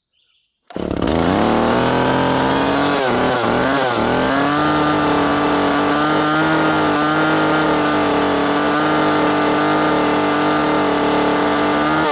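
Small top-handle chainsaw firing up about a second in, wavering in speed for a moment, then running steadily at high revs until it drops off at the very end. The owner calls the saw not quite tuned yet and a little fickle.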